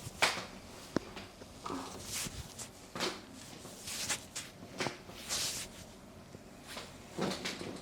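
Scattered rustling and rubbing of hands and clothing during a chiropractic adjustment, with a single sharp click about a second in.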